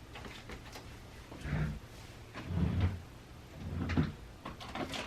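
Three dull, low thumps roughly a second apart, with light clicks and knocks between them.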